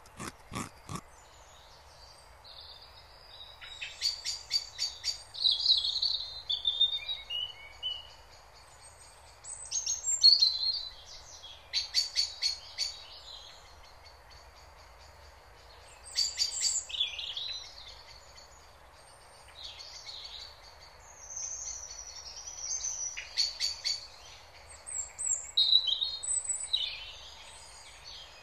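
Wild songbirds singing and calling in bursts, with short fast trills among the chirps, over a steady background hiss. A run of evenly spaced clicks, about three a second, stops about a second in.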